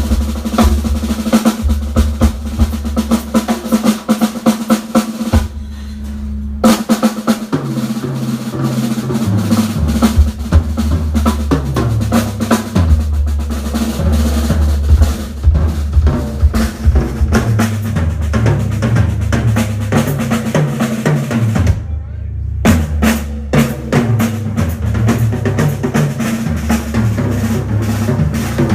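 Live band playing with the drum kit to the fore: busy snare rolls and bass-drum hits over a moving electric bass line and a held keyboard tone. The band stops dead for a moment about 22 seconds in, then comes back in.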